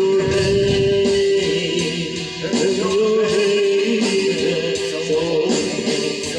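Music with sung vocals: a choir-like sound with long held notes.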